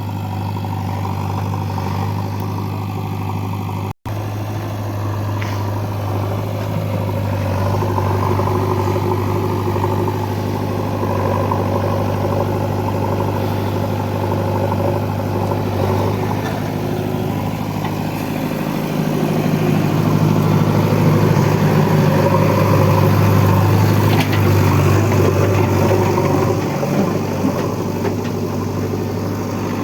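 Diesel engine of heavy earthmoving machinery running steadily, working harder and louder for several seconds past the middle. The sound cuts out for an instant about four seconds in.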